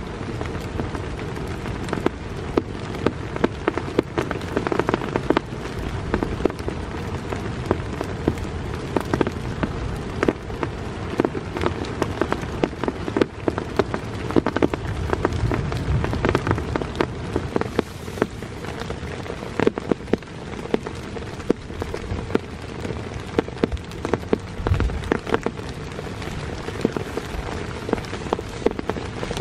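Heavy rain falling steadily, with many sharp, separate drop hits on a nearby surface.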